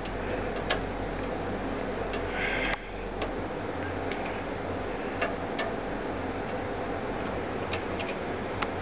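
Scattered light clicks at irregular intervals over a steady low hum, with a short hiss that cuts off suddenly about three seconds in.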